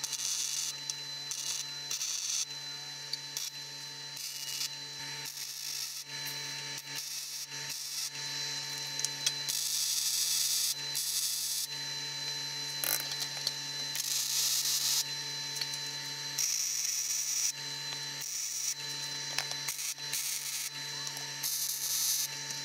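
MIG welder arc crackling and hissing on quarter-inch steel plate in a string of short welds, each lasting from half a second to about two seconds with short pauses between. A steady hum runs underneath.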